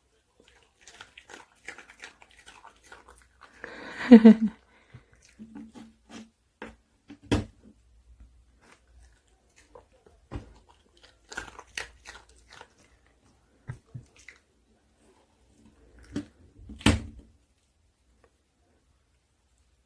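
Dog chewing and crunching a hard dog cookie, with irregular crunches and sharp snaps of teeth on the treat. A brief, louder pitched sound about four seconds in.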